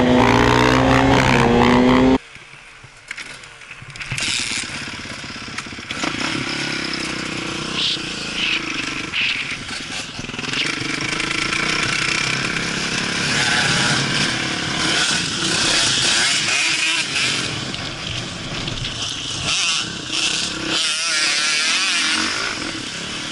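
Onboard sound from a Kawasaki KX450F, a single-cylinder four-stroke motocross bike, ridden hard on a dirt track. The engine revs up and drops back through the gears, with wind rushing over the helmet-mounted microphone. It opens with a louder passage of steady held tones that cuts off abruptly about two seconds in.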